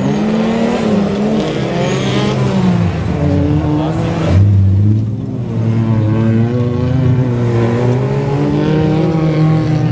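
Engines of several off-road 4x4s racing on a dirt course, overlapping engine notes revving up and down as they accelerate and ease off, with a brief louder surge about four seconds in.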